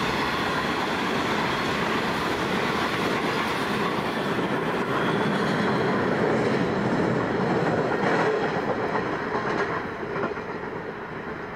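Steel wheels of a freight train's loaded grain hopper wagons rolling past on the rails, the last wagons going by, then the rumble of the train receding and falling away about nine seconds in.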